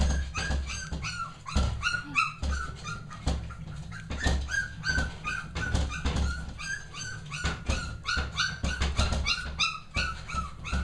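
A litter of young Cavalier King Charles spaniel puppies crying and whining over and over, many short high-pitched cries a second, the puppies crying for attention. Low thumps sound underneath.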